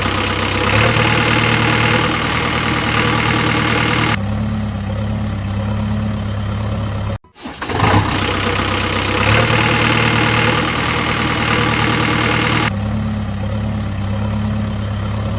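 Diesel-type machine engine running with a steady low hum, its sound brighter for the first few seconds and then settling. It cuts out briefly about seven seconds in and the same stretch plays again, a looped engine sound.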